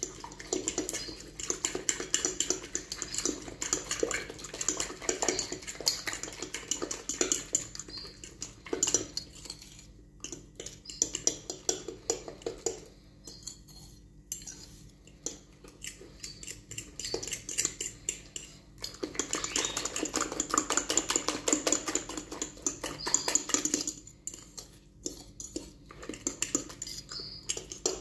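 A utensil beating raw eggs and oats in a glass bowl: rapid clinking and scraping against the glass, stopping briefly a few times.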